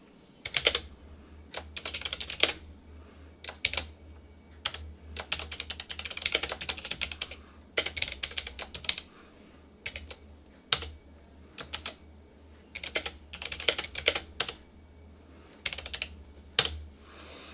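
Typing in irregular bursts on a mechanical keyboard with clicky Kailh Box Pink switches, a drop-in replacement keyboard for an Atari 1200XL, the key clicks coming in quick runs with short pauses between. A steady low hum runs underneath.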